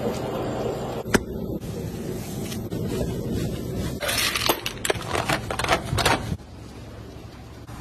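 Raw minced meat being handled and mixed, with scattered sharp clicks and crackles; the sound changes abruptly several times.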